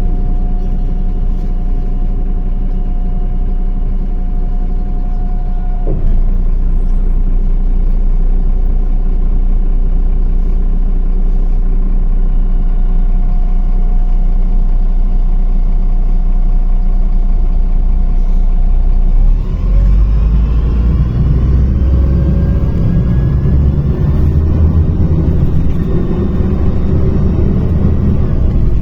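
MAZ-105 city bus's diesel engine running steadily at low revs, then pulling away about two-thirds of the way in, its pitch rising as the bus accelerates.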